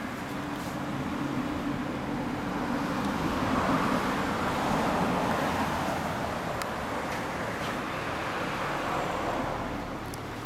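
Road traffic: a car passes on the street, its noise swelling to a peak about four to five seconds in, then fading away.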